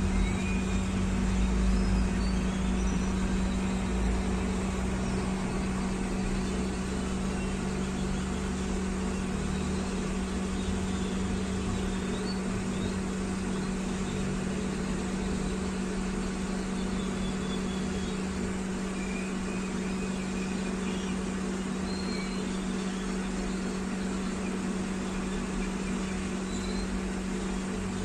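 Microwave oven running with a steady low electrical hum.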